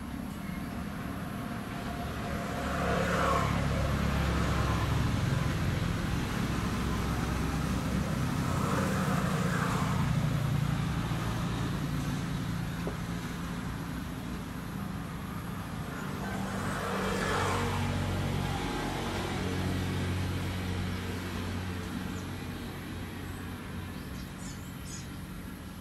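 Motor vehicles going past: a low engine drone that swells twice, a few seconds in and again past the middle, then fades.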